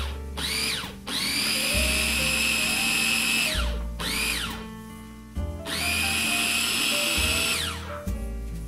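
Small food processor motor pulsing graham cracker crumbs with melted butter and sugar: two brief pulses and two runs of a couple of seconds, each whining up to speed and winding down.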